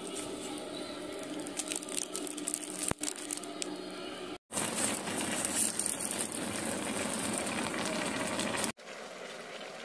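A plastic bag crinkling as grains are shaken onto hot coals, with scattered crackles. After a sudden cut about four seconds in, a pot boils with a steady hiss, quieter after a second cut near the end.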